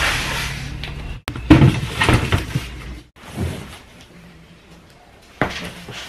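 Large cardboard cartons of diaper packs being lifted, shifted and stacked on one another: knocks and cardboard scraping, loudest between about one and a half and two and a half seconds in, with another sharp knock near the end. The sound breaks off abruptly twice.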